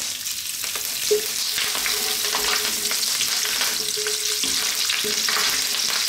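Cumin seeds and fresh curry leaves sizzling and crackling in hot sunflower oil in a nonstick skillet, stirred with a wooden spoon. The sizzle builds over the first couple of seconds and then holds steady, with a single knock about a second in.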